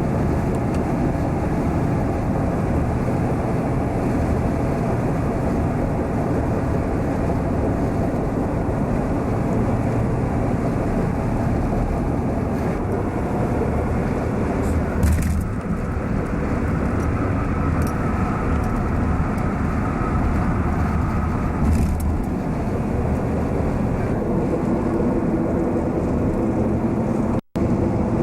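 Steady rumble of a car moving along the road, with a couple of faint knocks; the sound cuts out for an instant near the end.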